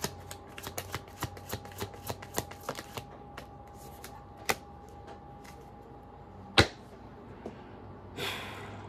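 A tarot deck being shuffled by hand: quick card flicks, about four or five a second, for the first three seconds, then a few scattered taps, a single sharp loud tap about two-thirds through, and a short rustle of cards near the end.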